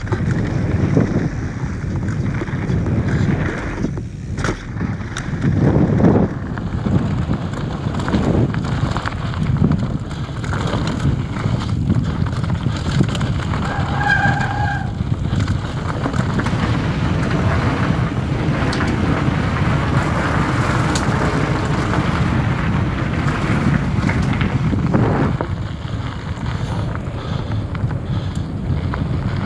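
Mountain bike descending a dirt and gravel trail at speed, heard from an action camera on the rider: a steady rush of wind on the microphone over tyre rumble, with sharp knocks and rattles as the bike hits bumps.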